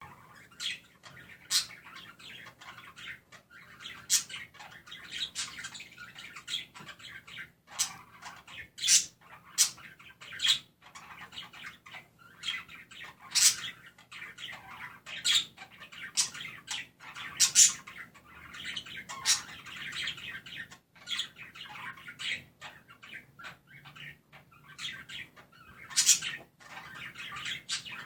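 Budgerigars chattering and warbling nonstop, broken every second or two by sharp, high-pitched chirps and squawks.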